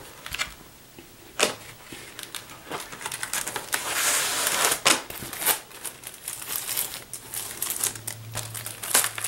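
Handling of a cardboard gatefold record jacket and a vinyl record in a plastic inner sleeve being slid out: crinkling plastic and rustling, scraping card with sharp taps, and a longer rustle about four seconds in.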